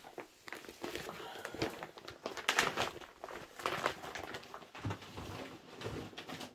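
Plastic zip-mesh storage bags holding diamond-painting canvases being handled and packed away: irregular rustling and crinkling with several light knocks.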